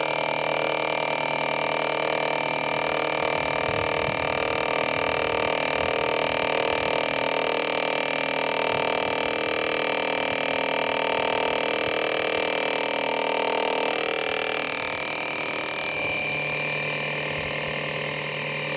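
A micro lathe's motor and spindle run with a steady whine while a tool cuts a square stick of wood. About three-quarters of the way through, part of the tone drops out and the sound gets slightly quieter.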